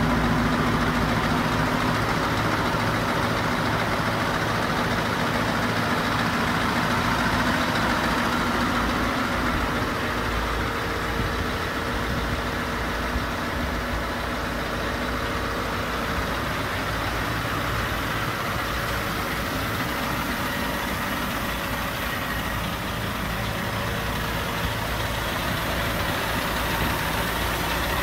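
Scania R580 truck's V8 diesel engine idling steadily.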